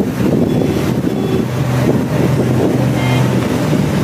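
Steady low drone of a covered river ferry boat's engine running under way, with wind on the microphone.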